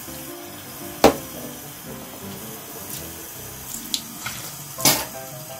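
Bathroom sink tap running, water splashing into the basin as a toothbrush is rinsed under it. Two sharp knocks, about a second in and near the end.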